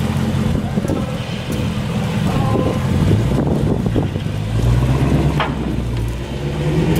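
Dodge Challenger V8 engine rumbling at low speed as the car drives slowly. The engine pitch rises between about three and five seconds in, as it picks up a little throttle, then settles.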